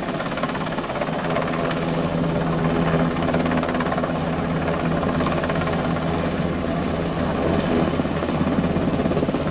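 NH-90 military helicopter flying low and close, its four-bladed main rotor and twin turboshaft engines running with a steady, even beat.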